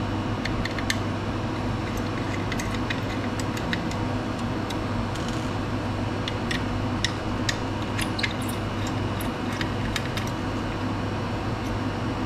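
Small, irregular metallic clicks and ticks as a hex key is fitted into and turns out the screws of a sample holder plate, over a steady low hum.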